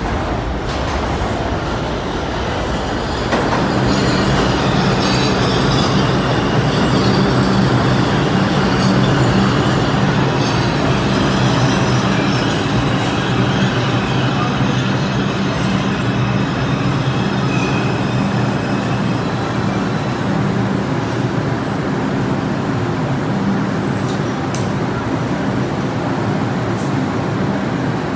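An R142 subway train pulls into an underground station and comes to a stop: a steady rumble of wheels on rail with a low hum that grows louder about three seconds in, and thin high squeals from the wheels and brakes.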